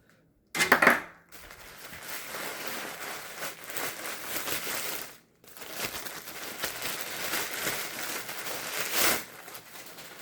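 Shipping packaging being torn open and crumpled by hand, a run of crinkling and ripping that starts abruptly with a loud rip, pauses briefly about halfway, then carries on.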